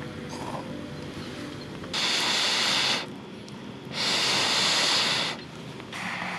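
Breaths blown through a metal fire blow pipe onto a campfire's embers: three rushes of air, the first two loud and about a second long each, the third shorter and softer near the end.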